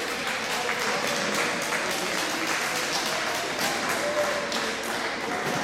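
Hubbub of voices mixed with scattered claps and knocks in a large sports hall during a powerchair hockey game.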